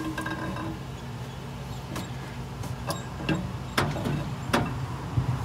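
Worn camshaft, some lobes wiped, being slid by hand out of a Ford V8 engine block, knocking against the cam bearings in about five sharp metallic clicks, over a steady low hum.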